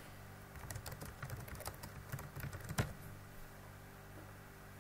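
Typing on a computer keyboard: a quick run of keystrokes starting about half a second in and stopping about three seconds in, the last press the loudest.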